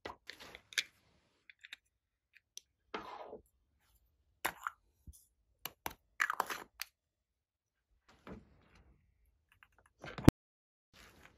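Glossy slime being worked by hand: scattered short sticky crackles and clicks with quiet gaps between them, and one sharp click near the end.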